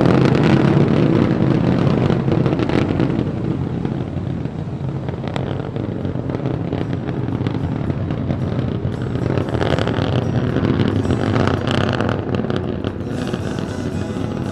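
Starship SN15's three Raptor methane rocket engines burning during ascent: a steady, deep rumble of exhaust noise with fine crackle through it.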